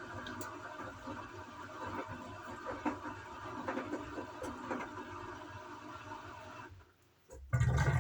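Gorenje washing machine running mid-cycle: a steady motor whir with a hum of several held tones. It stops about seven seconds in, then a loud low rumble starts as the drum turns again.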